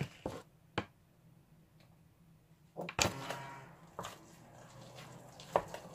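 A wooden spoon stirring mashed potatoes in a stainless steel pot: a few light knocks against the pot, with a stronger knock and a second or so of scraping about three seconds in.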